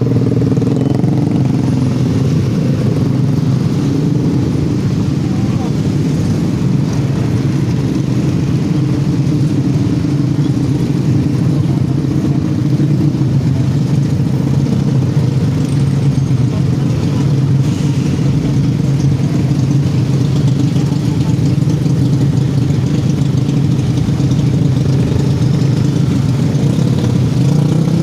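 Steady engine drone of slow, crowded traffic: many motorcycles moving at low speed around the vehicle carrying the microphone, its pitch holding constant throughout.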